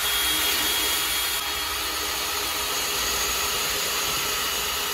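Power drill with a 3/8-inch bit running steadily under load, boring a pilot hole into a wooden deck ledger board for a half-inch lag screw.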